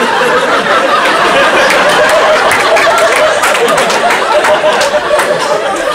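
Comedy-club audience laughing loudly, with scattered clapping from about a second and a half in.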